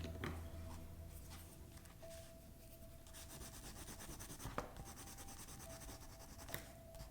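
Crayon scribbling and rubbing on paper, a continuous scratchy sound, with a few sharp taps about four and a half and six and a half seconds in.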